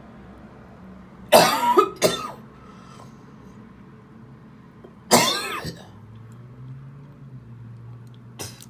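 A woman coughing up phlegm: a loud cough about a second and a half in with a shorter one right after, then another single cough about five seconds in.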